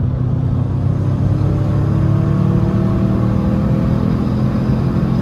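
Turbocharged EJ20X 2.0-litre flat-four in a 2011 Subaru WRX hatch, heard from inside the cabin, pulling in gear under load with its note rising slowly and steadily as the revs climb. It is a boost pull that reaches only about 15 psi, which the tuner puts down to the factory wastegate boost control being weak.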